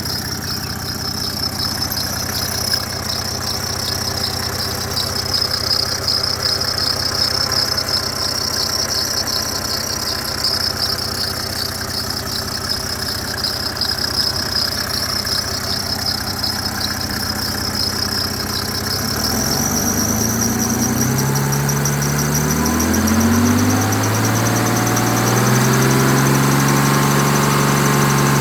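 Mercedes W124 300TD's OM603 naturally aspirated diesel engine idling, with a high, wavering squeal from the ribbed drive belt. About two-thirds of the way in, the engine is revved up twice and settles back. The owner suspects a broken power-steering pump bracket as the cause of the belt squeal.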